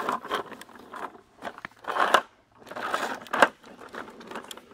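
Hard plastic wheels of a toddler's ride-on toy tractor rolling over rough asphalt, giving an irregular crackling and crunching with scattered clicks. The sound swells twice, about two seconds in and again around three seconds, with a sharp click near the end of the second swell.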